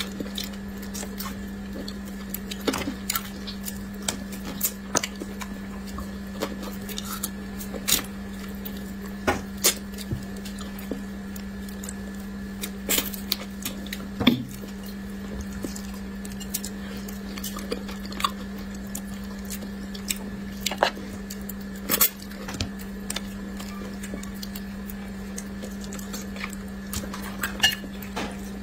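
Close-miked eating of spicy braised fish: irregular wet chewing and mouth clicks, with chopsticks tapping against the plate, over a steady low hum.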